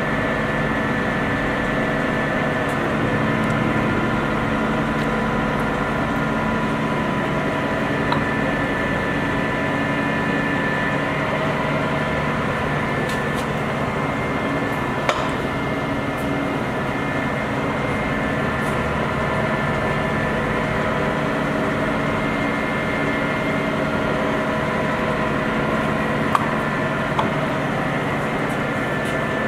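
Lodge & Shipley 26-inch by 144-inch engine lathe running under power: a steady machine hum carrying several steady whining tones from its drive. A few short clicks sound over it, one about eight seconds in, one about halfway and one near the end.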